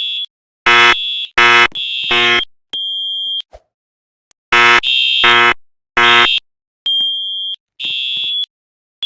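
Fire alarm system sounding its evacuation signal in short repeated blasts, about a third to half a second each. A buzzy horn and a high steady tone sound at once but out of step.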